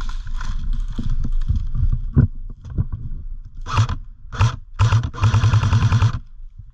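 Airsoft automatic rifle firing on full auto: three short bursts and then one longer burst of about a second, each a rapid run of clacks. Before it, rustling and footfalls through forest undergrowth.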